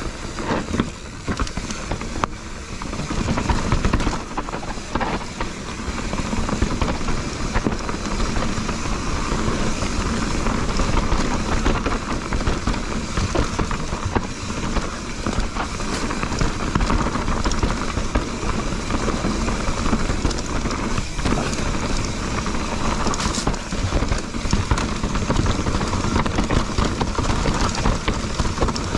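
Enduro mountain bike riding a rough dirt trail: tyres rolling over dirt and stones, the bike rattling, and scattered knocks from bumps, with wind noise on the camera microphone.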